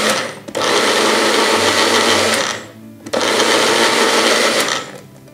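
NuWave Twister personal blender with its cross blade, pulsed by pressing down on the cup, chopping and emulsifying oil with Italian herbs. The motor stops about half a second in, runs again for about two seconds, pauses briefly, then runs for nearly two seconds more before stopping.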